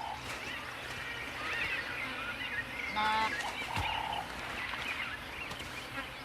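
Birds calling and chirping, with a short harsh repeated call about three seconds in, followed by a brief steady whistled note.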